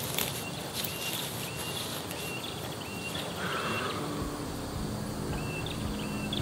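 Forest birdsong: a bird repeats a short high note about twice a second, stops, then starts again near the end. A lower call sounds about three and a half seconds in, and there is a light rustle of footsteps through undergrowth.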